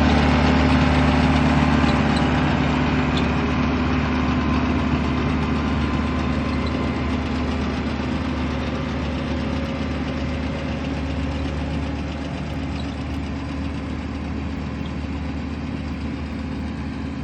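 Case IH JX90 tractor's diesel engine running steadily at a constant hum, driving a round baler; the sound eases off slightly over the stretch.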